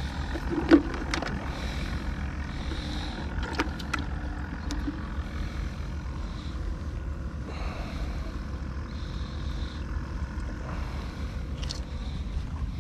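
Steady low rumble, with a few small clicks and rustles from hands handling fishing line and a plastic line spool, the sharpest about a second in.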